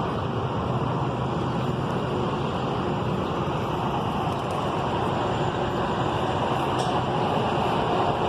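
Steady rumble of vehicle or engine noise, even throughout with a low hum underneath.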